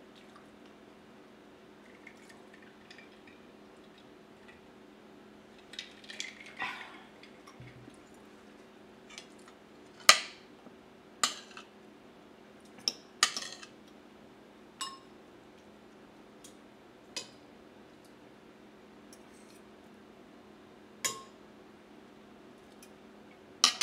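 Metal spoon and fork clinking and scraping on a ceramic plate while eating soup: a string of sharp clinks every second or two, the loudest about ten seconds in. A faint steady hum runs underneath.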